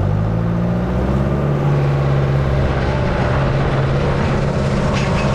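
Tractor engine opened up, its pitch rising over the first second or so, then running steadily at the higher speed while it pulls a hay rake.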